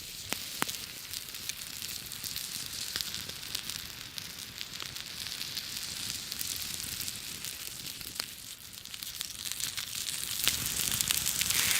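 A thick prime rib steak sizzling on a fire-heated flat rock, a steady hiss with sharp crackles and pops from the campfire, growing louder near the end.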